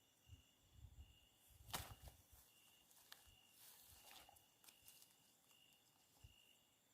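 Faint night ambience: a night insect chirping, one high chirp about every 0.7 seconds, with scattered rustling and low thumps and a sharp click about two seconds in.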